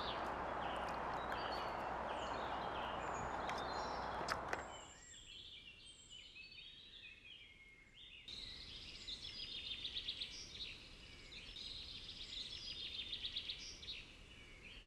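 Small songbirds chirping and singing in a woodland, over a steady outdoor hiss that drops away after about four to five seconds; the bird calls grow busier after about eight seconds.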